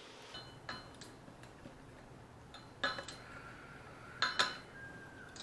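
Metal clinks and knocks with a short ring, several in all and loudest about three and four seconds in: motorcycle sprockets being handled and set down.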